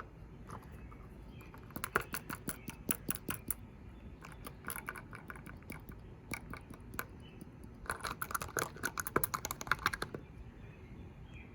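Glitter being shaken out of a plastic container into a bottle: two bursts of rapid rattling clicks, the second near the end.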